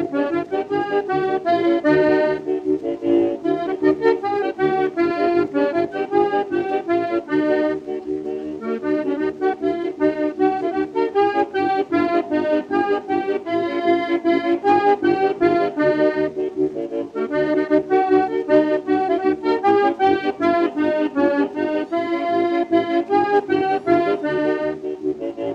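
Lively accordion music: a quick melody of rapidly changing notes over a steady bass-and-chord accompaniment.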